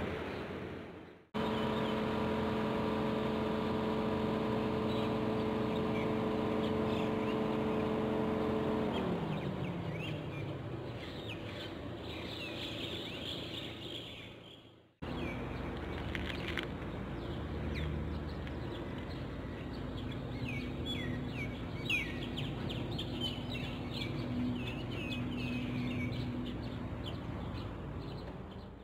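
Outdoor ambience in two parts: first a steady engine drone that slides down in pitch and fades about nine seconds in, then small birds chirping repeatedly over a faint, steady motor hum.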